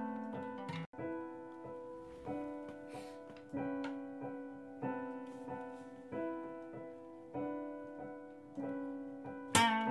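Piano music: slow sustained chords, restruck about every second and a quarter, with a brief dropout about a second in and a louder, brighter chord near the end.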